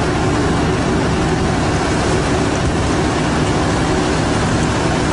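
Fishing boat's engine running steadily, a constant low drone under a loud wash of noise.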